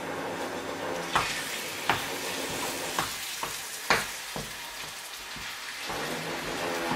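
Minced meat sizzling in a frying pan as it browns, stirred with a spatula that scrapes and knocks against the pan several times, most sharply about a second in and about four seconds in.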